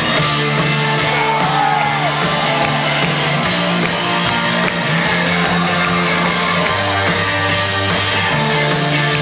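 Rock band playing live and loud: bass guitar holding long low notes that change every few seconds, under guitars and drums.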